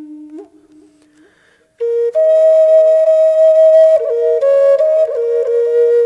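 Native American flute music: a low held note fades away, and after a short pause two higher notes come in together about two seconds in. They are held, with short bends and ornaments.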